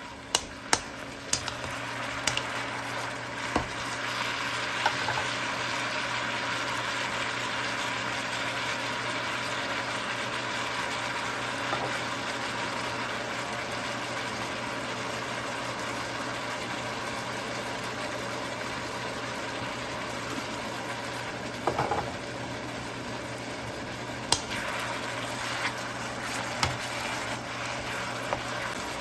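Mixed mushrooms sizzling steadily in a frying pan as they are stir-fried, with a steady low hum underneath. A utensil taps and clicks against the pan several times in the first few seconds and a few more times near the end.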